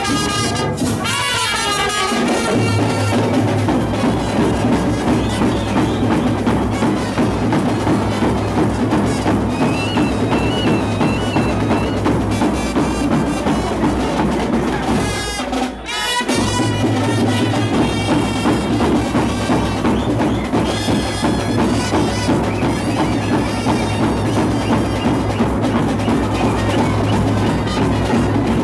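Live street band of trumpets, clarinet and drums playing a kuthu dance beat; the music breaks off for a moment about halfway through, then carries on.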